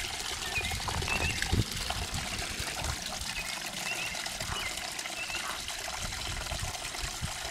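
Running water trickling steadily, with a few short, faint high chirps.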